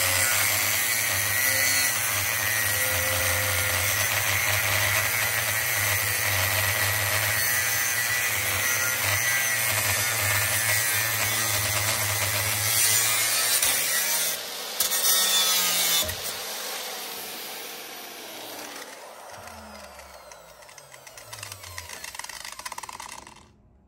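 Angle grinder cutting through an electric motor's steel shell: a steady loud grinding over the grinder motor's hum for about fourteen seconds. The disc is then lifted off and the grinder switched off, its pitch sinking as it spins down and fades out near the end.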